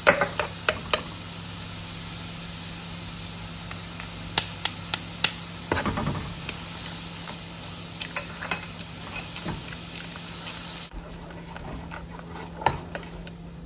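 A metal spoon and spatula clink and scrape against a granite-coated nonstick wok in irregular strikes as fermented bean curd is mashed and stirred into liquid over the heat. Under the strikes there is a steady sizzle and a low hum.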